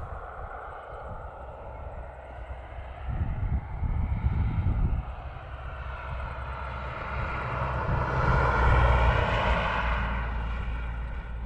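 A propeller plane flying over. Its engine drone swells to its loudest about eight seconds in, then fades as it passes, with wind rumbling on the microphone a few seconds in.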